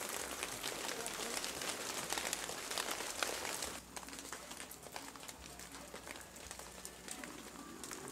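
Rain pattering as a dense hiss of fine drop ticks, falling to a softer patter about four seconds in.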